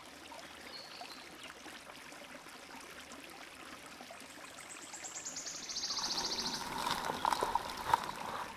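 Small woodland stream trickling steadily. About halfway through, a high rapid trill falls in pitch, and near the end a louder rustling noise with a few sharp knocks comes in.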